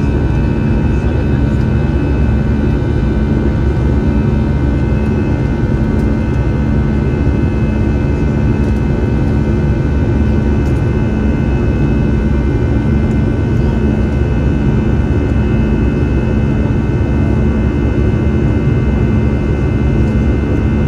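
Airbus A320-214's CFM56 jet engines running steadily, heard inside the passenger cabin: a loud, even rumble with several steady whining tones above it.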